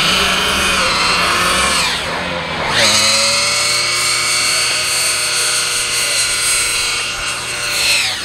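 Front-wheel-drive hatchback doing a burnout: the engine is held at high revs with the spinning front tyres squealing. The revs drop and climb back about two to three seconds in, hold high, then fall away at the end.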